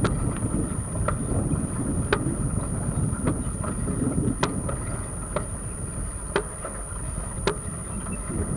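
Wind rumble on an action camera's microphone during a bicycle ride on asphalt, with a sharp click about once a second and a faint steady high whine.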